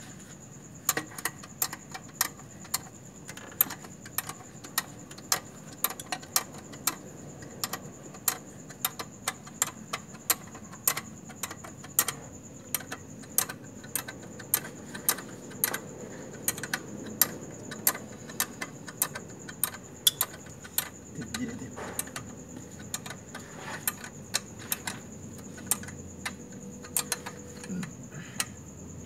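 Hand tools working on a car: sharp metallic clicks and clinks, irregular, about one or two a second, keeping on throughout.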